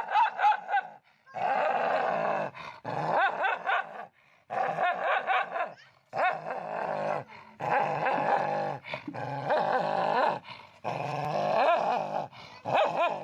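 A dog making a string of drawn-out, wavering vocal sounds, about nine of them, each around a second long with short pauses between.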